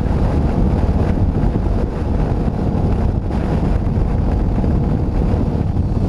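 Wind rushing over a helmet-mounted camera's microphone on a motorcycle at motorway speed, a loud steady low rumble with a faint steady engine note under it.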